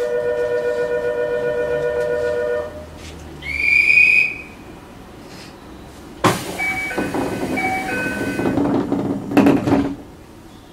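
Signals at a station stop heard from inside the train: a steady two-note tone for about two and a half seconds, a short rising whistle about a second later, then from about six seconds in a loud noisy stretch with short stepped chime-like tones that stops near the end.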